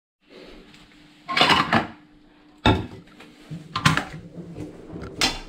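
Bowls and utensils clattering in a plastic bucket as they are handled by hand, in four short separate bursts of knocks.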